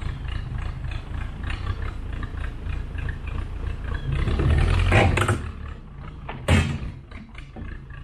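Case 580C backhoe running, its engine a steady low rumble with a rapid clatter. Near the middle it gets louder for about a second as the machine works, and a sharp metallic clank follows about a second later.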